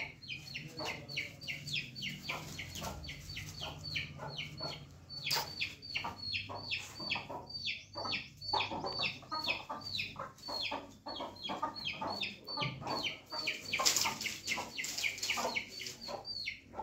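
Young Aseel chickens peeping: a steady stream of short, high calls, each falling in pitch, about three or four a second, with lower clucks mixed in.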